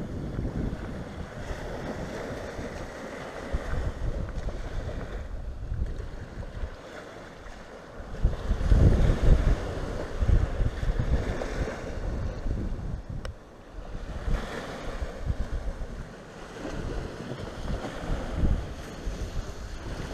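Small sea waves breaking and washing up on a sandy, boulder-strewn beach, with wind buffeting the microphone in gusts, the strongest about eight to ten seconds in.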